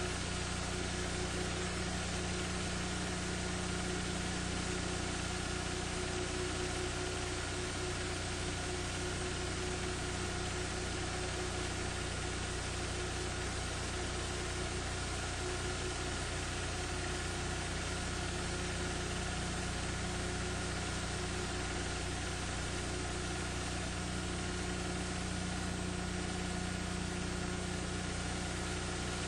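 Steady hum and hiss with no events, unchanging throughout. The film itself carries no sound of its own.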